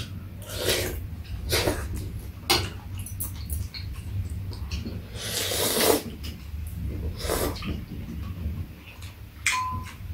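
People eating seafood stew: slurping and chewing, with one long, loud slurp about five to six seconds in, among light clicks of chopsticks and spoons against bowls.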